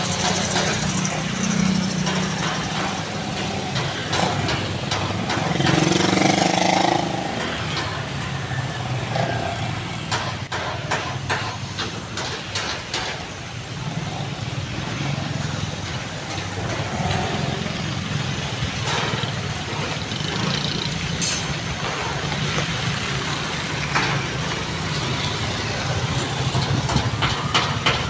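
Street traffic: engines of passing vehicles, among them a motorcycle, with a louder swell about six seconds in and scattered sharp knocks.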